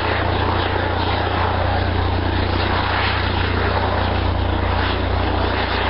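Aircraft engine noise from a display aircraft in flight, a loud steady sound without change in pitch.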